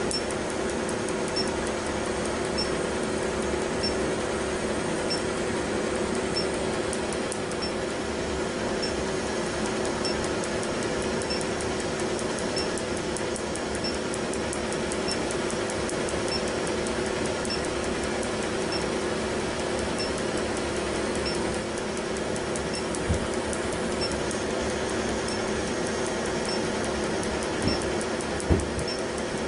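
Tattoo-removal laser machine running with a steady hum, a faint high beep about every second and fast faint ticking of the laser pulses. A couple of short knocks come near the end.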